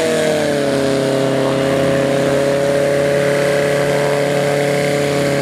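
Light single-engine taildragger's engine and propeller running at taxi power. The pitch eases down slightly just after the start, then holds steady.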